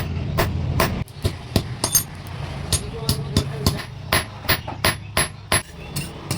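Blacksmith's hammer striking iron on an anvil while forging a khurpi hand hoe: a steady run of sharp metallic blows, about three a second, over a low hum.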